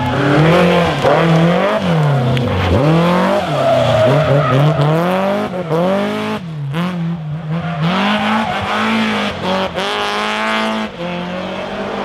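Rally car engine revving hard, its pitch climbing and falling again and again as the driver shifts and lifts for corners. About six and a half seconds in the engine drops off sharply for a moment, then pulls up through a long rise.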